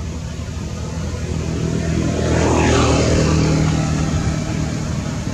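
Engine of a passing vehicle running steadily, growing louder to a peak about two and a half seconds in as it goes by, then easing off a little.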